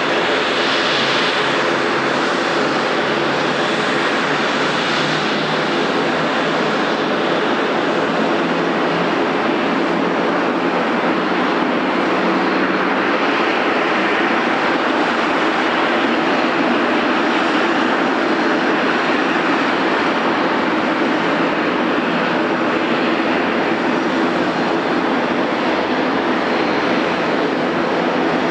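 Widebody jet airliner's engines running steadily: a loud, even rush over a hum of several steady tones, holding level without spooling up.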